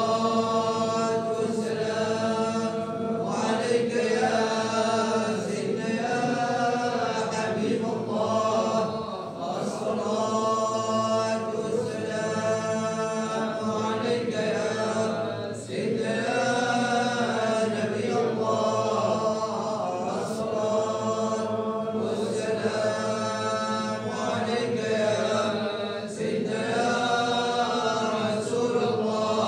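Sufi samāʿ chanting in the Annaba style: a lead voice sings long, melismatic phrases with brief breaths between them, over a steady held drone from other voices.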